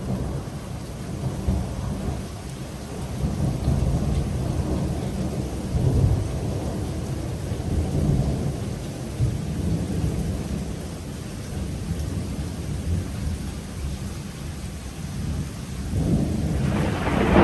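Thunder rumbling low and rolling over steady rain, swelling and fading in waves. Near the end a louder thunderclap builds up.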